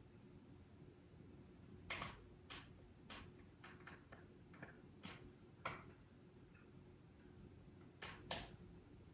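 Brass lever door handle being pressed down slowly, its latch mechanism clicking about ten times at uneven intervals, then two quick clicks close together near the end.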